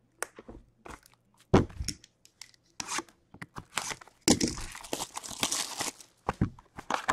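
Packaging of a box of Trilogy hockey cards being opened: plastic wrap and packs torn and crinkled. There is a sharp knock about a second and a half in and a long run of crinkling a little past the middle.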